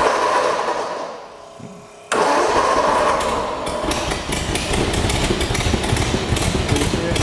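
A 1949 Allard's engine being started. A first burst of cranking fades away; about two seconds in the starter cranks again, the engine catches, and it settles into a steady, pulsing idle.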